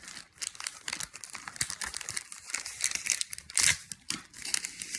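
Pop Rocks candy packet being crinkled and handled, an irregular crackling rustle with a louder burst about three and a half seconds in.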